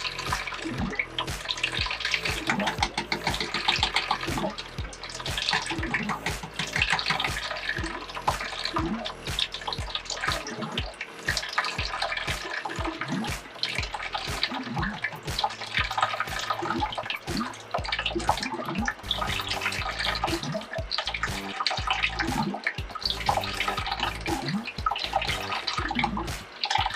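Water from a well pressure tank's opened drain valve pouring and splashing into a bucket as the tank drains down.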